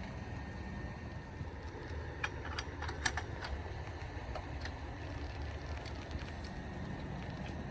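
Vehicle engine idling with a steady low rumble, with a cluster of light metallic clicks and rattles about two to three and a half seconds in and a couple more later.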